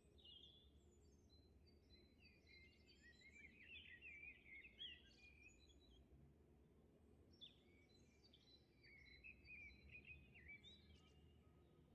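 Faint birdsong: small birds chirping in quick runs of short rising and falling notes, over a low steady hum.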